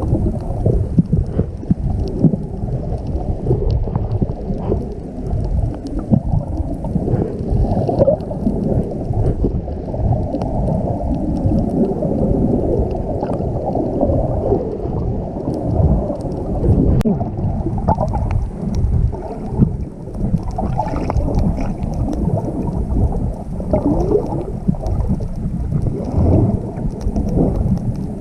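Muffled low rumble of water moving around a camera held in or at the water, with small clicks and gurgles scattered through it.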